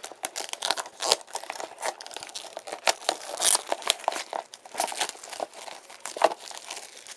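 Packaging being torn open and crinkled by hand: a run of irregular, sharp crackles and rips as the seal on the box gives way.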